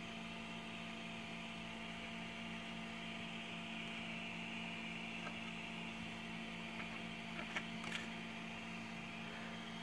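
Steady low electrical mains hum, with a few faint ticks near the end.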